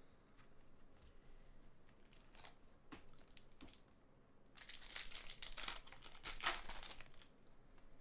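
Faint handling of trading cards with a few light ticks, then about halfway in the foil wrapper of a baseball card pack is torn open and crinkled for a couple of seconds.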